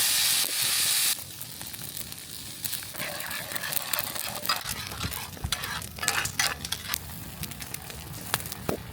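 A loud sizzle from a hot frying pan for about the first second, then quieter sizzling with a utensil stirring and scraping in the pan as country gravy is started in the pan drippings.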